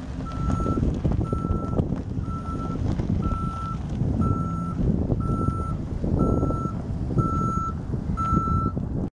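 A vehicle's reversing alarm beeping steadily, about once a second, each beep a single high tone of about half a second, over a low rumble of engine and wind noise.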